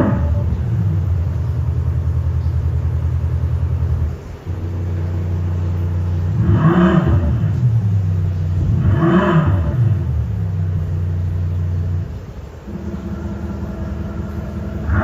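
Simulated sports-car engine note played by an AlphaX electronic sound generator fitted to a Tesla Model 3: a steady synthetic idle that breaks off briefly twice, with two quick revs that rise and fall a couple of seconds apart midway through.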